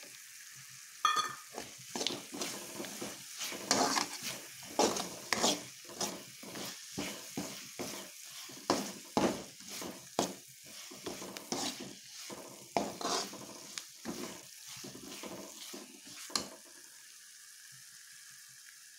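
Steel spoon stirring and scraping peanuts frying in a spiced oil seasoning in a pan: quick irregular scrapes over a steady sizzle. The stirring stops about two seconds before the end, leaving only the sizzle.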